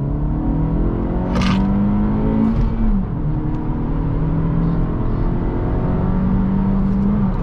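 2023 Acura Integra A-Spec's turbocharged 1.5-litre four-cylinder, on a freshly flashed Phearable 1.5R tune, accelerating hard through the gears, heard from inside the cabin. The engine's pitch climbs, drops at an upshift about three seconds in, then climbs again and drops at another shift near the end.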